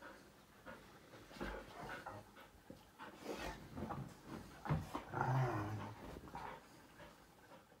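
A dog's sounds close by, with a short low vocal sound about five seconds in, amid scattered light knocks and clicks.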